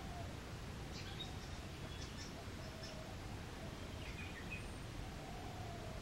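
Bird calls over a steady low background noise: a handful of short, high chirps spread through the middle, and fainter, lower drawn-out calls near the start, the middle and the end.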